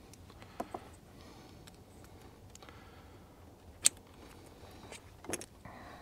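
Faint clicks and small rattles of plastic and metal fuel-line quick-connect fittings and retainer clips being handled, with a few separate ticks and one sharper click about two-thirds of the way through.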